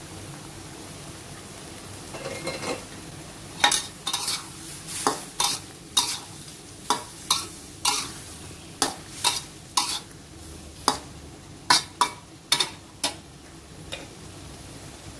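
Metal wok spatula scraping and clacking against a metal wok in a run of quick stirring strokes, about twenty, while stir-frying angled gourd and egg, over a steady low sizzle. The strokes start a few seconds in and stop about two seconds before the end, with one last light tap.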